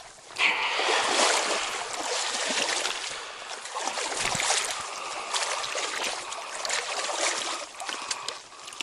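Stream water rushing and splashing close to the microphone, a steady noisy wash with small splashes throughout. It comes in abruptly about half a second in.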